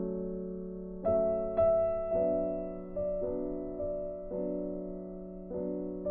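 Soft background piano music, single notes and chords struck about once a second and left to ring and fade.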